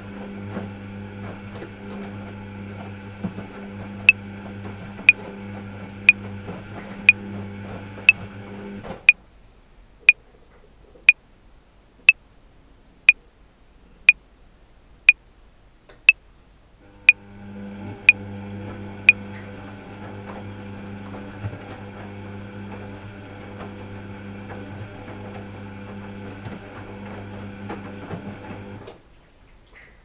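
Top-loading washing machine running on a cotton 60° wash with a steady motor hum that stops about 9 seconds in, starts again about 8 seconds later, and stops once more near the end. Over it a metronome clicks once a second at 60 bpm, sixteen sharp clicks from about 4 seconds in.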